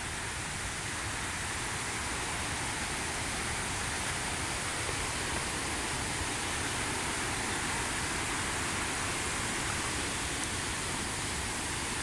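Steady rush of fast white water from a river and waterfall, an even unbroken hiss.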